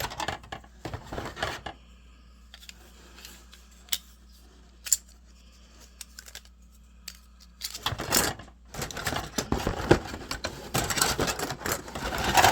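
Plastic model kit parts being handled: clicking and clattering, with a quiet stretch in the middle broken by a couple of sharp clicks, then busier clicking and rustling near the end.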